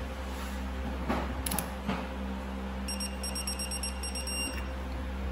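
Rapid electronic beeping for about a second and a half, starting about three seconds in, over a steady low hum, with a few light clicks before it.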